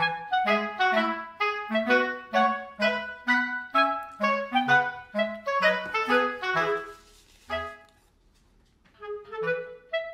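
Background music: a bouncy melody of short, separate notes over a bass line, about three or four notes a second. It breaks off for about a second near the end, then starts again.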